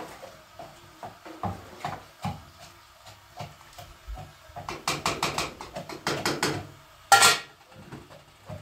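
Clatter of cooking pots, dishes and utensils: scattered knocks and clinks, a quick run of clattering in the middle, and one louder, sharp ringing knock about seven seconds in.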